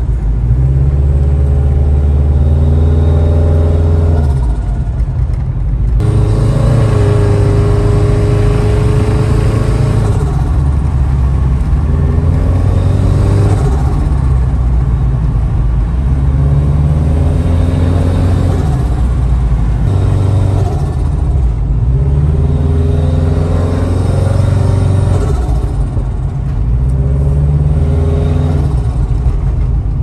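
Turbocharged 2.5-litre flat-four of a 2005 Subaru Forester XT with a VF39 turbo, heard from inside the cabin, pulling through the gears. Its note rises and drops several times between shifts, with the GrimmSpeed bypass valve venting boost as the throttle closes.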